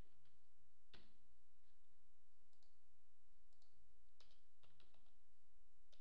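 A handful of separate keystrokes on a computer keyboard, single clicks with pauses between them, over a faint steady low hum.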